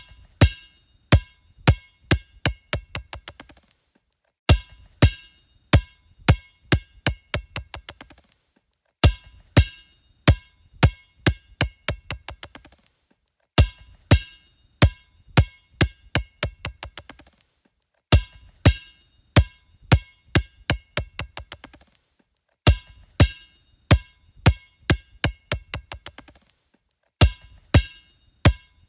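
A basketball dropped on a hard floor and bouncing, each bounce ringing. The bounces come quicker and fainter until the ball settles. The same drop-and-bounce sequence repeats about seven times, roughly every four and a half seconds.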